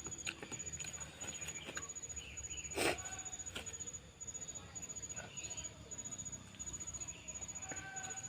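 Close-miked eating sounds from a mouthful of spicy seblak: small wet mouth clicks and chewing, with one brief louder sound about three seconds in.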